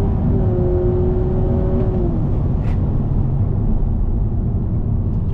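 Cabin noise of a Honda Civic RS e:HEV hybrid being driven flat out: a steady powertrain and road drone, with a held whine that dips in pitch and drops away about two seconds in.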